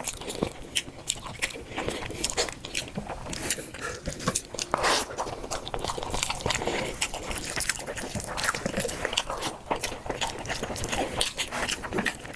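Close-up eating sounds of chicken and rice: irregular crunching bites and wet chewing, many quick sharp crunches.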